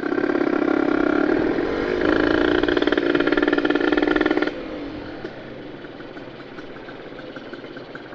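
Ported Kawasaki Ninja 150 RR single-cylinder two-stroke engine being ridden in under throttle. It rises in pitch about two seconds in, then the throttle shuts suddenly a little past halfway and it drops to a quieter, lower running.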